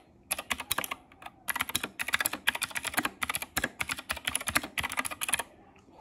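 Anne Pro 2 60% mechanical keyboard with clicky Gateron Blue switches being typed on fast: a dense run of crisp key clicks, with a brief lull about a second in, stopping shortly before the end.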